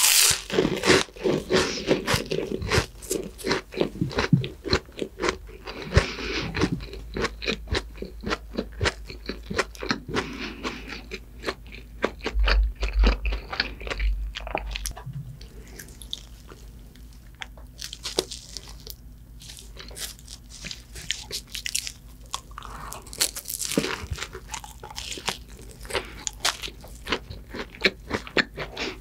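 Crispy bites and close-up chewing of a breadcrumb-coated Korean fried croquette. The crunching is loudest and densest over the first several seconds, then settles into quieter, sparser chewing with a few more crunchy bites later on.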